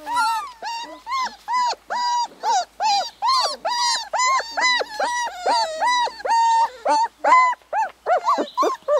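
Young puppy whining: a steady run of short, high-pitched whimpers, about three a second, each one rising and falling in pitch.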